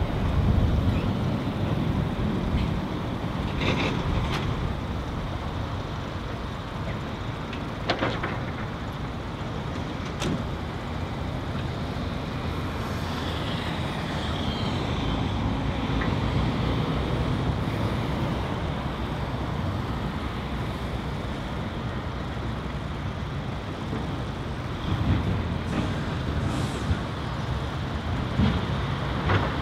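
Heavy diesel engines of excavators and a dump truck running steadily at work, with a few short knocks in the first ten seconds.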